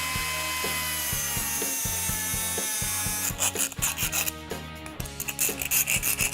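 A small power tool spins up with a high whine and cuts the new door handle's latch pin down to size; about three seconds in it gives way to a hand file rasping back and forth on the pin in quick strokes.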